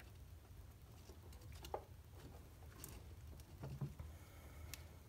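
Faint, scattered clicks and scrapes of battery cable insulation being peeled and the cable ends being handled, a few sharper ticks among them, over a low steady hum.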